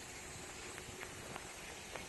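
Steady outdoor background hiss with a few faint ticks scattered through it.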